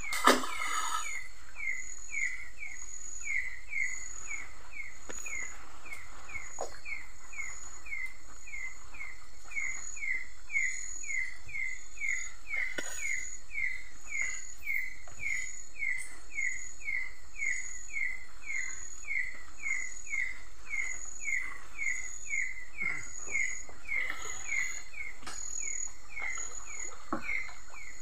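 Night chorus of calling animals: one creature repeats a short chirp about twice a second without pause, over a higher, even pulsing trill at about one pulse a second.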